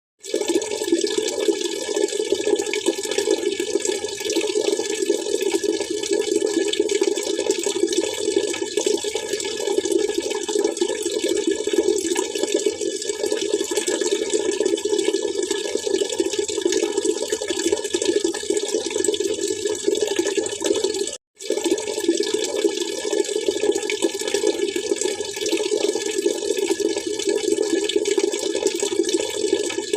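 Water splashing and trickling steadily, with no let-up apart from a split-second dropout about two-thirds of the way through.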